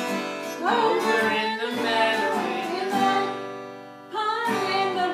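Acoustic guitar strummed as accompaniment to voices singing a traditional children's song, with a short break in the singing about four seconds in.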